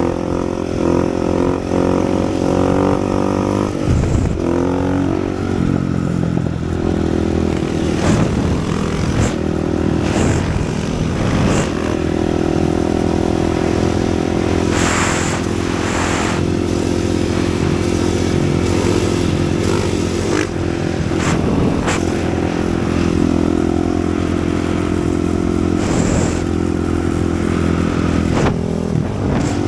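450 cc single-cylinder four-stroke supermoto engine running under way, its pitch rising and falling with the throttle in the first seconds and then holding steady for a long stretch mid-ride. There are a few short clatters.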